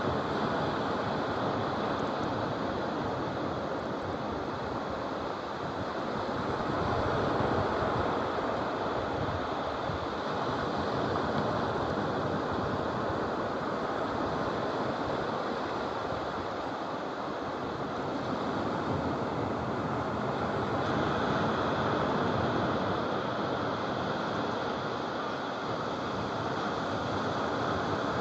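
Sea surf on a sandy beach: a steady rush of breaking waves that swells and eases slowly, loudest about seven seconds in and again about twenty-two seconds in.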